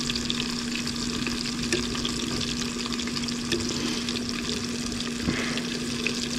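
Crumbed fish pieces frying in hot sunflower oil and butter in a pan: a steady sizzle with small crackles over a steady low hum. There is one soft knock about five seconds in.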